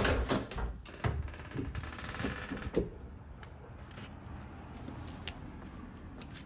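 Front door hardware being worked: a sharp latch click, a few knocks, then a quick mechanical rattling for about a second as the door opens. After that there is only a quieter background.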